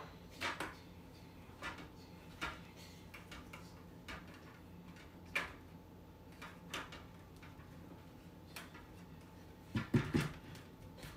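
Plastic Marbleworks marble-run pieces clicking and tapping as they are handled and fitted together: scattered light clicks, then a louder cluster of knocks about ten seconds in.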